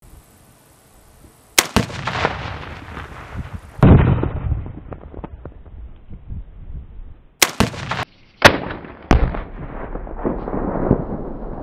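Tannerite exploding-target blasts from a one-and-a-half-pound charge. A sharp crack comes about a second and a half in, then a deep, loudest boom near four seconds, then three more sharp blasts close together later on. Each one trails off into a rolling rumble.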